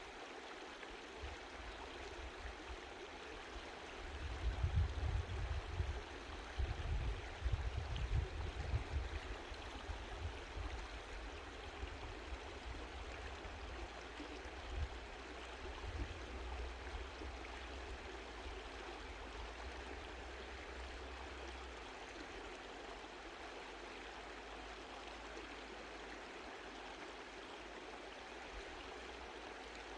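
Mountain stream flowing in a steady, gentle rush. From about four seconds in, a low uneven rumble rises beneath it and is the loudest sound for several seconds. The rumble then fades and is gone a little past twenty seconds in.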